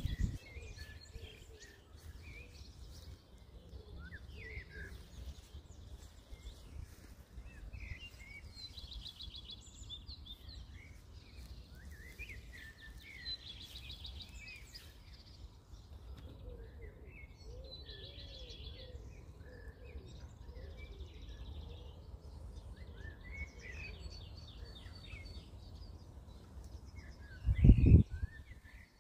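Several garden songbirds chirping and trilling, over a steady low rumble. A brief loud low thump comes near the end.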